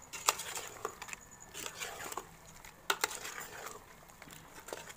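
A metal ladle stirring chicken pieces and masala frying in a metal pot, with scattered sharp knocks and scrapes of the ladle against the pot, the loudest just after the start and about three seconds in.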